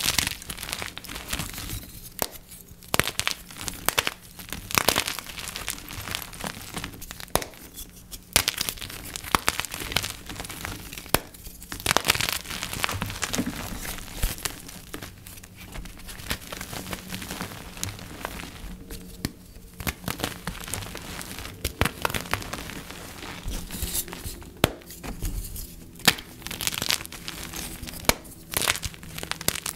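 Dip-dyed gym chalk blocks being crushed, with dense, irregular crunching and crumbling and occasional sharper snaps as the blocks break apart.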